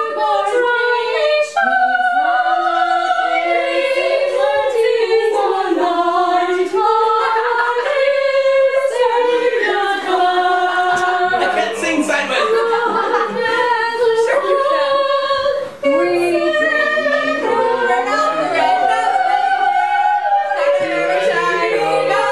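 A group of teenage girls and boys singing together a cappella, with no instruments, holding notes in a tune. Lower voices join in near the end.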